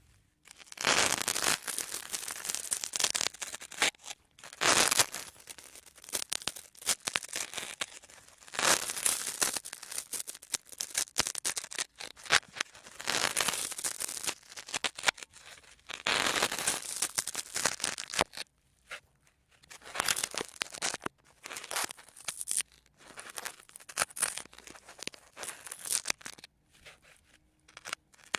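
A sponge being handled for sound: crackly, scratchy noise in repeated bouts of one to three seconds with short pauses between them.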